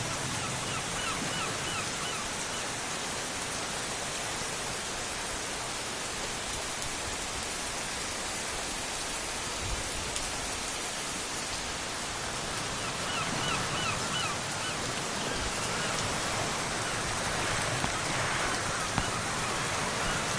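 Heavy rain pouring onto a flooded street, a steady hiss of rain on standing water. Short runs of faint chirps come through about a second in and again around thirteen seconds.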